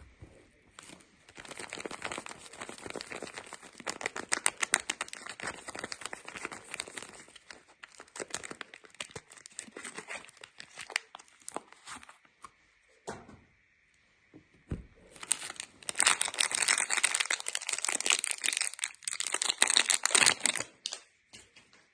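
Soap wrapping being unwrapped by hand, crinkling and tearing in two long stretches. A pause of a few seconds in the middle holds a couple of single clicks.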